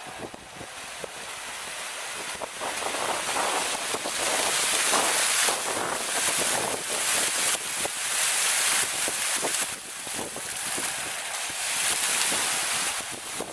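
Rows of fountain jets spraying up from the pool floor and splashing back into the shallow water: a steady hiss of spray that swells over the first few seconds as the jets rise, dips briefly, and falls away near the end as they drop.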